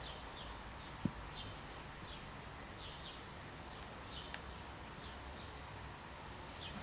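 Young mustelid kit making short, high-pitched chirps, about two a second, each dropping slightly in pitch, as it mouths a plush toy. A single brief thump about a second in.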